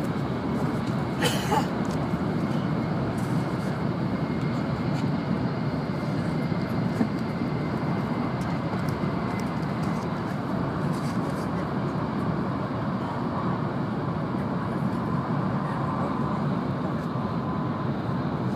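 Steady rumble and rush of an N700-series Shinkansen running, heard inside the passenger cabin, with a brief hiss about a second in.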